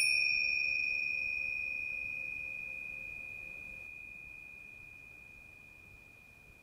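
A single high, bell-like chime struck once, ringing on one clear pitch and fading away slowly; its brighter overtones die out within the first few seconds.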